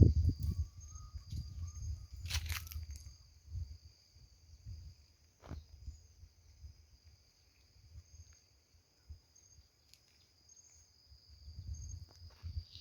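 A steady high-pitched insect chorus of two constant whining tones, one with a pulsing trill, over low thumps and rustles that are strongest at the start and again near the end, with a few scattered clicks.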